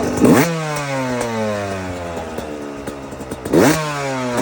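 Yamaha YZ125 two-stroke engine blipped twice: a quick rev right at the start and another about three and a half seconds in, each followed by the pitch falling slowly as the engine winds back down.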